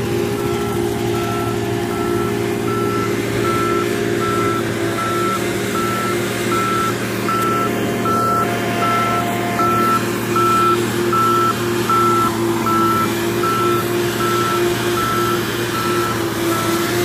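A truck's reversing alarm beeping steadily, about two beeps a second, over a running engine.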